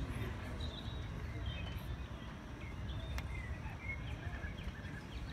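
Faint open-air stadium ambience after the applause has died away: a low steady rumble and scattered distant crowd voices, with faint high chirps now and then.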